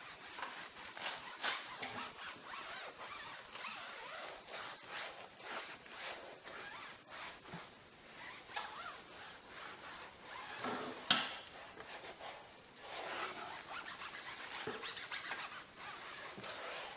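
Foam applicator pad rubbing thick tire dressing onto a tire sidewall in repeated short scrubbing strokes, with one sharp click partway through.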